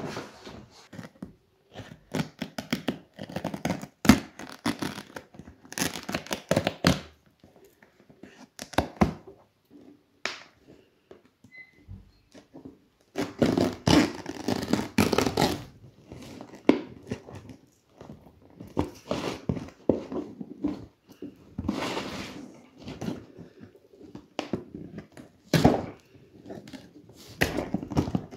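Duct tape being slit and peeled off a taped box in irregular tearing, scraping rasps, with a few sharp knocks as the box is handled on a wooden workbench.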